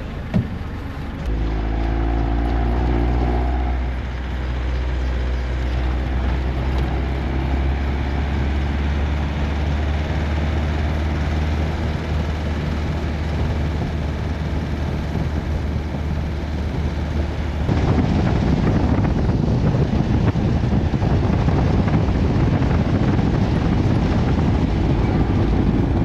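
Bus engine running with road noise, heard from inside the bus. A steady low drone sets in about a second in, and about 18 seconds in the sound turns rougher and louder, with a dense rattling rumble.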